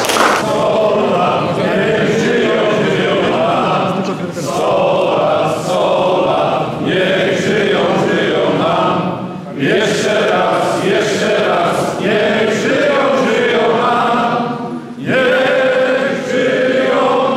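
A group of men singing a song together without accompaniment, in phrases broken by short pauses for breath.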